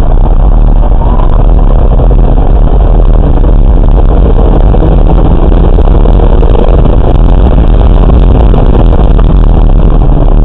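Car at speed on a race track, heard on an onboard camera: engine, wind and tyre noise in one steady wash, loud enough to overload the recording.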